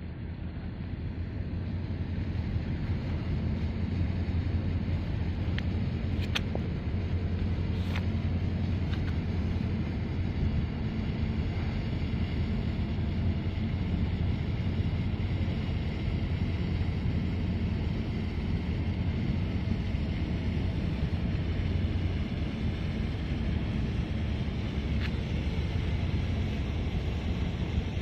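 Steady low engine rumble of a large ship in the harbour, carrying across the water, with a couple of faint clicks about six and eight seconds in.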